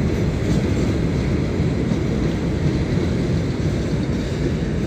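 A passing train, heard as a steady low rumble.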